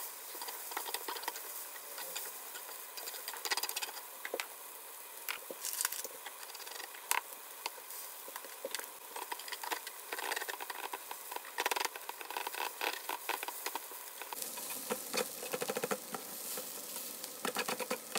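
Yakisoba noodles, vegetables and an egg sizzling on a hot griddle plate, with metal tongs and a spatula clicking and scraping against the plate as the food is tossed and turned.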